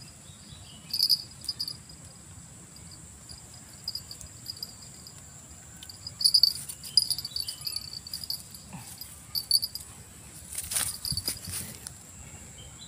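Insects calling: a steady high drone with short chirping bursts repeated over it, and a few brief knocks a little before the end.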